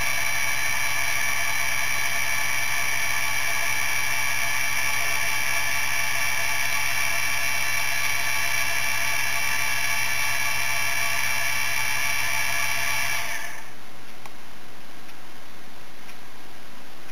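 The new low-noise spindle of a Sable-2015 hobby mini CNC mill spinning free without cutting, a steady high whine of several tones over a low hum, measuring about 58 dB at half a metre. It shuts off about thirteen seconds in.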